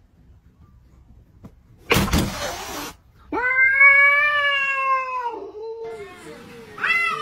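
Cats in a standoff: a hiss lasting about a second, about two seconds in, then a long drawn-out cat yowl that sags in pitch as it ends. Near the end another cat starts a new wavering yowl.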